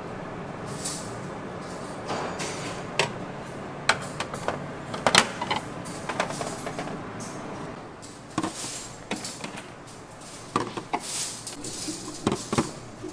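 Kitchen clatter: dishes and utensils knocking and clinking, in irregular clusters over a steady background hum.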